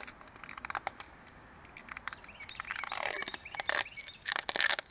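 Fingers rubbing and peeling rubbery Plasti Dip overspray off the tire's edge at the rim: irregular scratchy rubbing with small squeaks and clicks, busier in the second half.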